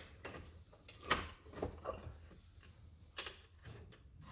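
Scattered light clicks and knocks of metal parts being handled as an ATV track mounting bracket is pressed into place and a bolt and nut are fitted. The clearest knocks come about a second in and about three seconds in.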